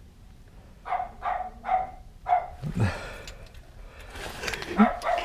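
A dog barking in short single barks: four about a second in, then a quicker run of barks near the end.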